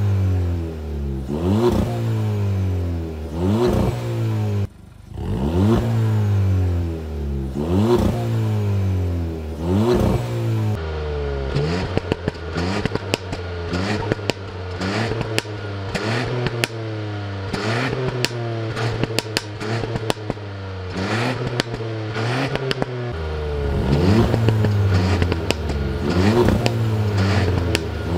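Stock exhausts of two stationary cars being free-revved in repeated blips, each rev rising and falling. For the first ten seconds or so it is the Skoda Karoq's 2.0 TSI turbo four-cylinder; after that it is the Ford Puma ST's 1.5 EcoBoost turbo three-cylinder, with many sharp crackles. Near the end both play together.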